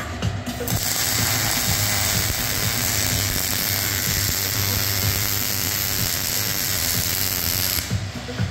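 Steady loud hiss of a metalworking power tool, starting just under a second in and stopping shortly before the end, over background music.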